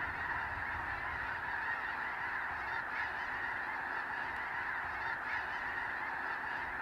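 A large flock of snow geese calling together: a steady chorus of many overlapping honks.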